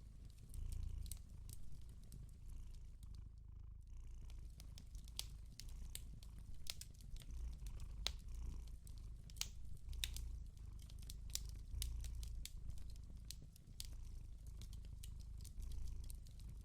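A cat purring in slow low pulses, about one a second, with the scattered crackles and pops of a wood fire.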